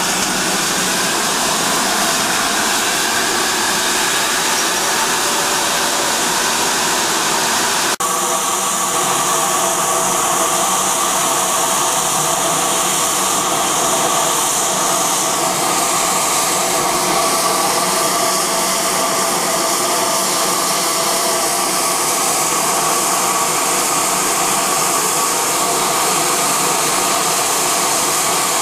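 GWR Hall class 4-6-0 No. 4953 Pitchford Hall standing and blowing off steam: a loud, steady hiss, with a brief break about eight seconds in.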